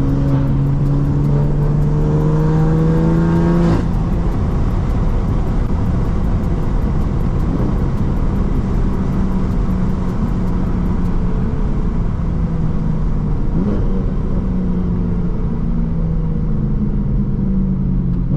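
BMW F80 M3's S55 twin-turbo inline-six running through an equal-length exhaust under way: the engine note climbs under acceleration for about four seconds and drops at a gear change, then carries on at a steadier pitch that rises and falls gently.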